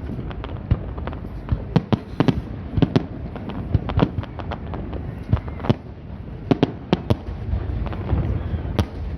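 Fireworks display: a rapid, irregular string of bangs and sharp cracks from bursting shells, over a steady low rumble that swells near the end.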